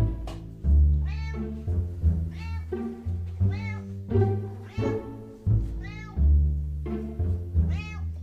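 A cat meowing about six times at uneven intervals, each meow rising then falling in pitch, over background music.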